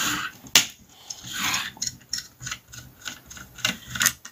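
Small screwdriver and fingers working the screws of a laptop motherboard's metal heatsink: a run of sharp little metallic clicks with a couple of brief scraping rubs.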